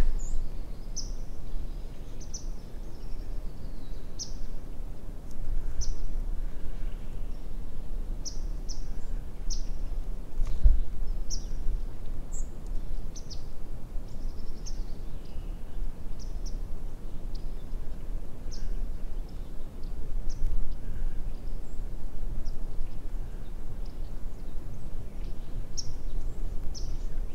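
Small birds giving short, high chirps about once a second, sometimes in pairs, over a steady low rumble of outdoor background noise.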